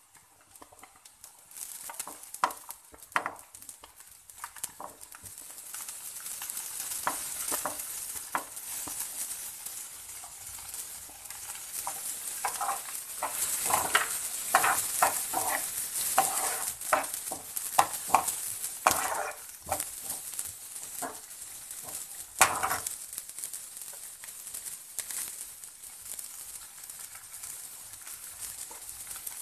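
Shredded carrots and peas sizzling in hot oil in a frying pan, stirred with a metal spoon that scrapes and knocks against the pan. The strokes come thickest in the middle, with one sharp knock about three-quarters of the way through.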